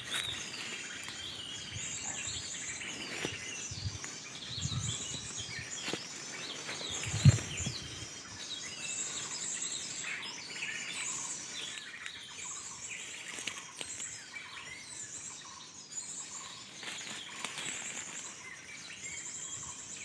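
Many birds chirping and trilling in a dense overlapping chorus, including a bird-song lure recording played to draw birds to glue-stick traps. A single brief low thump about seven seconds in.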